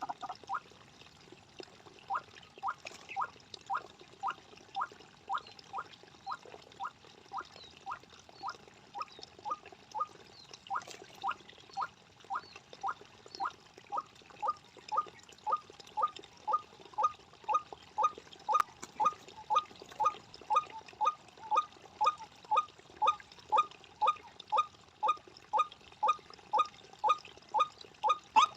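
White-breasted waterhen giving its monotonous repeated call, a steady series of short croaking notes at about two to three a second that grows louder and slightly faster.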